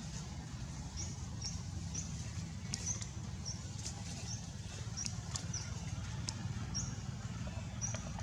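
Baby monkey giving a series of short, high squeaks, one or two a second, over a steady low rumble.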